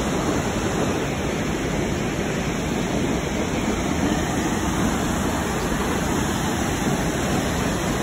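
Waterfall rushing steadily: a loud, even wash of falling water that does not change.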